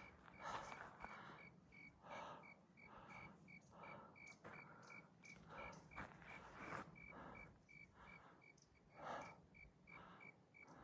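Faint, heavy breathing of a hiker near the top of a steep climb, drawing in and out about once a second, with a faint high chirp repeating steadily a few times a second behind it.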